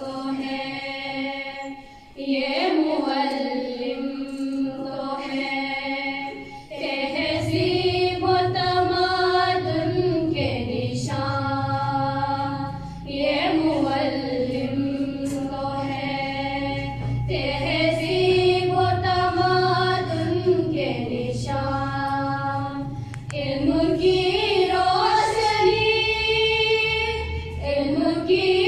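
A group of girls singing a song together, unaccompanied, in long held melodic phrases with short pauses for breath. A low steady hum joins the singing about seven seconds in.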